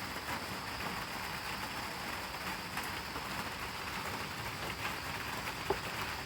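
Heavy rain falling steadily, an even hiss of drops with faint scattered ticks and one sharper tap near the end.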